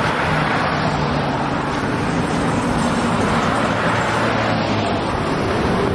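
Road traffic: cars passing on a multi-lane road, a steady noise of tyres and engines.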